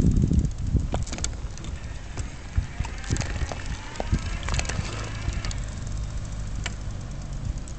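Wheelchair rolling over paving stones: a steady low rumble with scattered rattling clicks and knocks from the frame and the loosely held camera mount, louder at the start and easing off as it slows.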